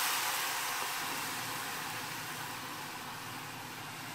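Freshly poured blended tomato, onion and garlic salsa sizzling in hot oil in a frying pan: a steady hiss that slowly dies down.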